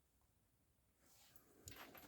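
Near silence: room tone, with a few faint clicks near the end.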